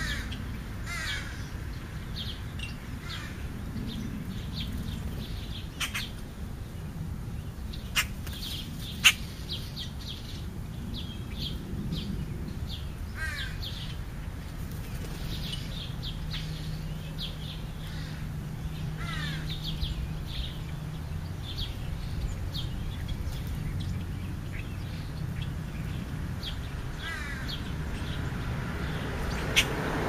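Birds feeding on the ground, calling with many short high chirps and a few quick falling calls over a steady low rumble. A couple of sharp clicks sound about eight and nine seconds in.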